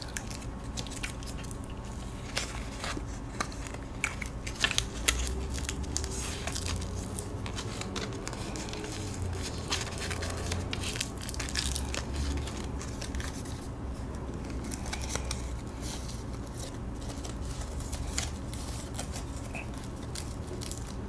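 A thin sheet of edible paper being folded by hand into a paper airplane, close to the microphone: soft, scattered paper crinkles and crackles as it is creased.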